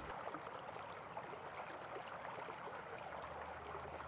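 Faint steady hiss of background noise, with a low hum that comes in about three seconds in.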